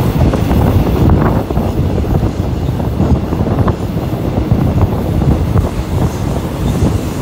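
Passenger train running along the track, heard from an open coach window: a steady, loud rumble of wheels on rail with a few faint clicks, and wind blowing on the microphone.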